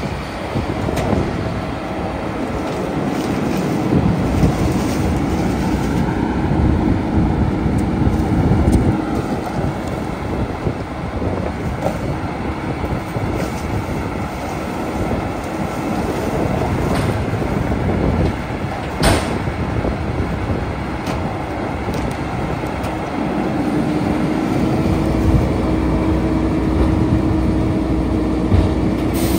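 Heil Multipack rear-loader garbage truck running, its diesel engine and hydraulic packer working through a packing cycle. A steady whine comes in about a second in and drops away after several seconds, then returns near the end. There is one sharp bang about two-thirds of the way through.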